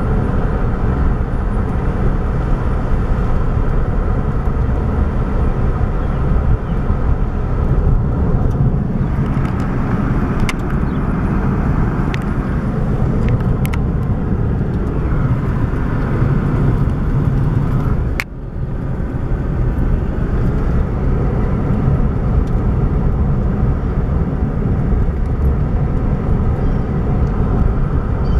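Steady road and engine noise of a car driving at speed, heard from inside the cabin, with a brief drop in the sound about two-thirds of the way through.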